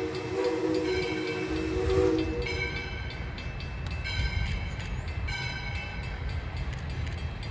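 Steam locomotive No. 40's chime whistle sounds a steady chord that cuts off about two seconds in. After it, the approaching train runs with a low rumble while a bell rings about once a second.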